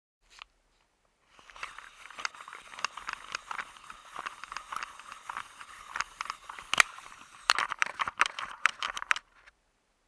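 A 35mm film camera's mechanism being worked by hand: one short click, then about eight seconds of continuous rattling and scraping made of many small clicks. There is one loud sharp click partway through and a quick run of sharp clicks near the end.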